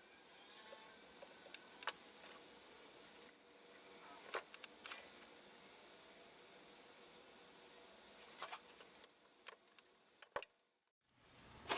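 Quiet room tone with a scattering of small sharp clicks and taps from hand tools and resistor leads being handled on a wooden workbench during circuit-board soldering, the two loudest about halfway through.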